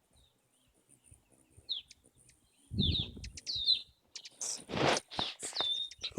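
Hummingbirds giving sharp, high chirps that slide down in pitch, scattered in bursts from about a second in, with short louder rushing bursts around three seconds and again near five seconds.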